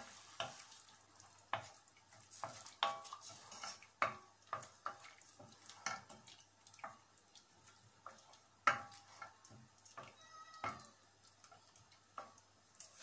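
Wooden spoon stirring a wet tomato masala in a stainless steel pan, with scattered knocks and short scrapes against the pan, some ringing briefly. Under them is a faint sizzle of the masala cooking with a little water added.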